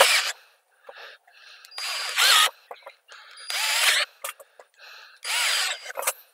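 Cordless drill-driver driving screws through a countersunk metal mounting plate into a wooden table foot. It runs in short bursts, about four loud ones roughly two seconds apart with quieter ones between, its whine rising in pitch as the motor spins up each time.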